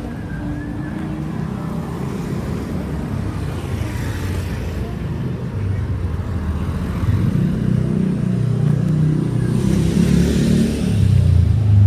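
Street traffic at low speed: car and van engines running close by, growing louder over the second half as vehicles pass near, with a swell of tyre hiss about ten seconds in.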